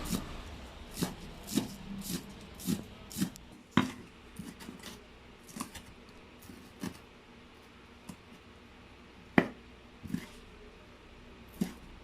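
Knife cutting on a chopping board: irregular knocks, about two a second at first, then sparser, with one sharper knock just past the middle.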